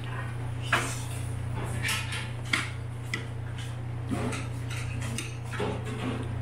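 Metal chopsticks clicking and scraping against a plate of rice during eating, about six short sharp clicks spread irregularly, over a steady low hum.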